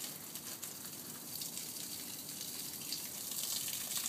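Water running out of an expandable garden hose as it shrinks back: a steady hiss that grows louder over the last second or so.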